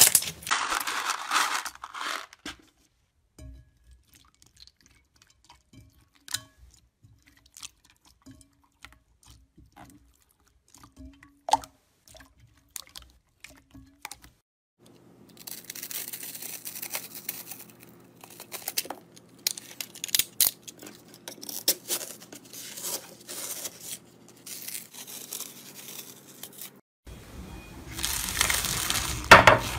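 Hands squishing and pressing slime, with sticky popping and crackling clicks that are sparse and quiet through the middle. Near the end, loud dense crunching as a hand pushes into plastic pieces in foamy slime.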